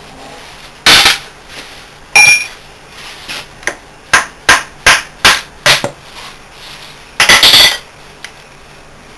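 Steel hand tools knocking and clanking on a Bitzer semi-hermetic compressor's cast-iron housing and terminal plate. Two loud ringing clanks come first, then about six sharp taps at roughly three a second, then a short rattling clatter near the end.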